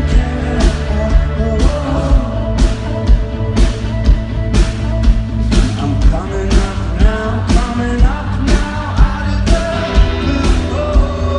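Rock band playing live through a concert PA, with heavy bass, guitars and drum hits on a steady beat about twice a second.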